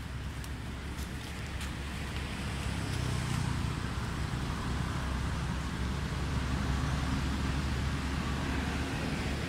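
Low, steady rumble of a motor vehicle engine that grows louder about three seconds in and stays there, with a few faint clicks in the first two seconds.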